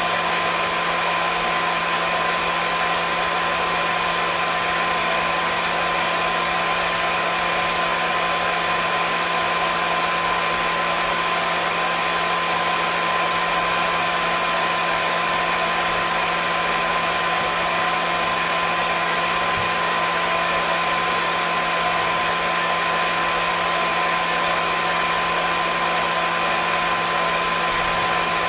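Hair dryer running steadily: an even rush of air with a constant motor hum and a steady whine riding on it, unchanging throughout.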